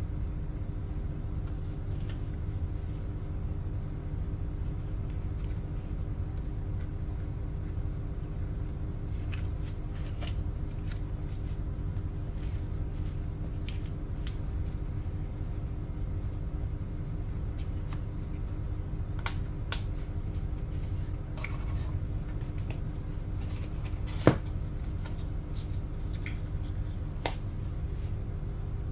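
Light rustling and clicking of hands handling small wipe sachets and a hard plastic case, with a few sharper plastic clicks in the last third, over a steady low hum.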